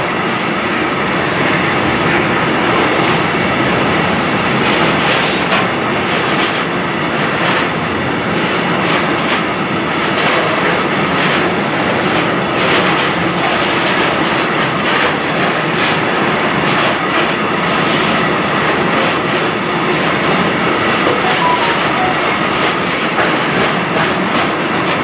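A freight train's loaded container flat wagons roll past at speed in a steady rush of wheel and rail noise, with faint clacks as the wheels cross the rail joints.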